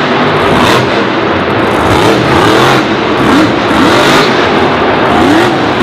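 Loud, steady engine noise like cars revving and racing, with short rising-and-falling whines.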